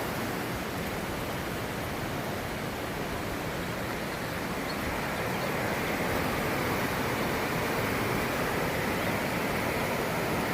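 A swollen river in flood, its water rushing past in a steady, unbroken noise.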